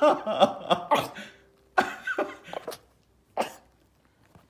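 A small dog grumbling briefly, then giving several short, sharp huffs through its nose as it noses under a sofa cushion after a hidden treat.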